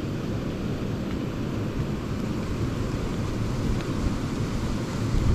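Steady low rush of a small creek's running water, with wind rumbling on the microphone. A brief low thump comes right at the end.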